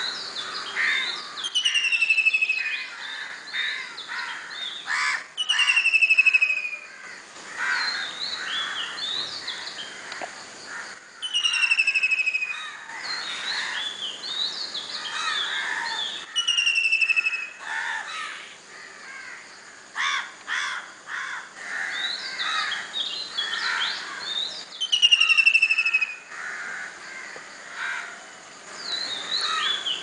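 Dawn chorus of several bird species calling and singing together, with harsher short calls among them. One bird repeats a clear whistle that falls in pitch, about every four to five seconds.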